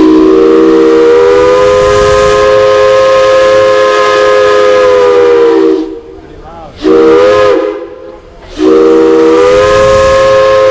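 Multi-chime steam whistle sounding a chord of several close tones over a hiss of steam: one long blast of about six seconds, a short blast, then another long blast beginning near the end.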